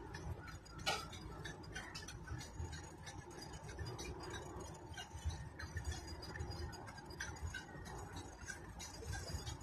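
Faint harbour background: a low steady rumble scattered with light clicks and clinks, one sharper click about a second in.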